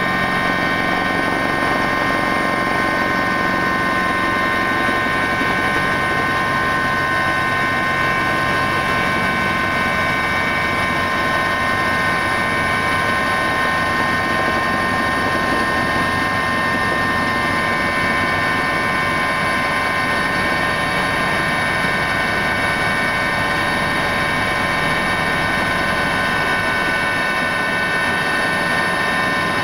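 Helicopter in flight heard from inside the cabin: a steady, unchanging engine whine with several tones over the rotor and airframe noise.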